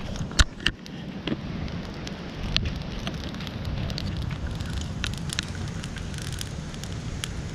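Campfire of dry fronds and sticks crackling, with many sharp pops over a steady low rush. The loudest pops come in the first second and a half.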